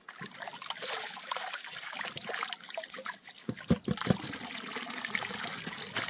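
Water sloshing and trickling as a gold pan of river gravel is swirled and washed out in the river, with a few dull knocks a little past halfway.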